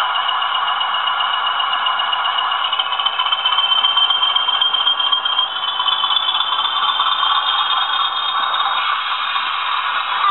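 Two Bachmann Class 20 model locomotives running as a pair, their LokSound V4 decoders playing Class 20 diesel engine sound through small speakers. A high whistle in the engine sound steps up in pitch about three seconds in and again past five seconds, as the engines work harder.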